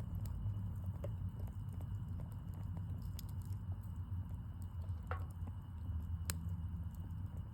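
Wood fire crackling, with scattered small pops and a sharper crack about six seconds in, over a steady low rumble.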